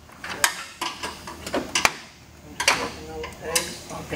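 A series of irregular sharp clicks and knocks: a screwdriver prying the plastic retaining pegs of a pickup's upper front plastic trim panel loose, and the panel knocking as it comes free.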